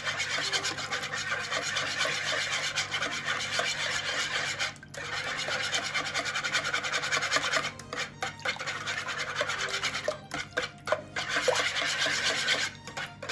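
A wire whisk beating eggs and water in a plastic bowl: rapid, rhythmic strokes that pause briefly a few times. The eggs are being whisked until fully broken up.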